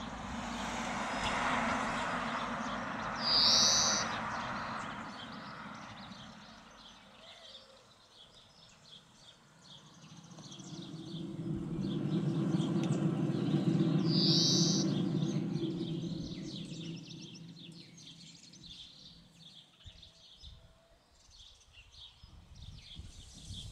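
Birds singing outdoors, with a short high call that repeats about every eleven seconds. A low rumble, like a vehicle passing on a road, swells and fades in the middle.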